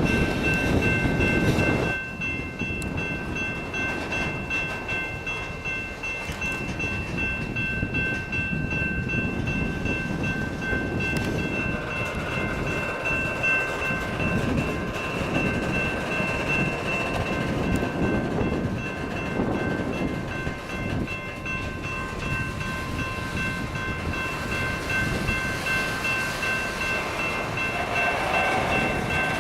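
Train running, a steady rumble with a chord of several high tones held throughout. It is louder for the first two seconds.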